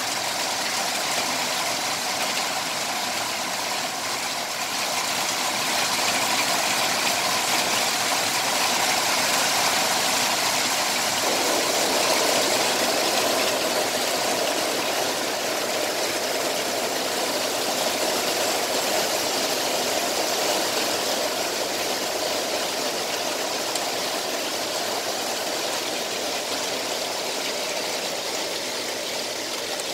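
Heavy rain pouring steadily, a dense, even hiss that swells slightly for several seconds partway through.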